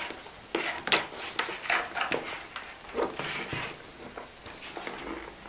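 Hands handling a cardboard kit box: a rubber band pulled off it and the box shifted and tapped, giving a series of short scrapes and knocks.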